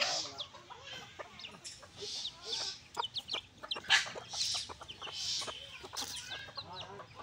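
A flock of chickens clucking as they forage, with many short calls from several birds scattered throughout.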